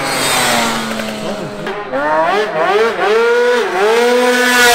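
Twin-engine two-stroke Yamaha Zuma scooter revving under a riding rider: the engine pitch falls at first, then climbs and dips several times with the throttle, and is held high near the end.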